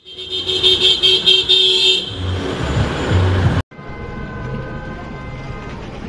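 Car horns honking in street traffic: loud honking for the first two seconds over engine rumble. After a sudden cut about three and a half seconds in, a quieter horn is held on one note over the noise of the street.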